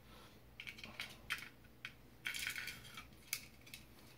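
Light clicks and small rattles of a Glock magazine's polymer body, spring and follower being handled and fitted together during reassembly, with a short rattling scrape a little past halfway and a sharper click about a second later.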